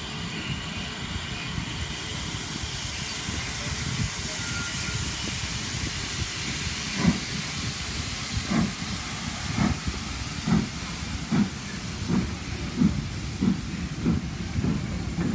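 Steam locomotive pulling its train away: a steady hiss of steam, then from about seven seconds in a run of heavy low beats that come quicker and quicker as the train gathers speed.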